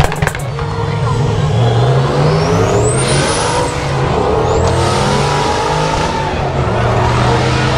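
A car engine revving hard as the car accelerates. Its pitch climbs, drops about four seconds in, then climbs again, with a high whine rising alongside it.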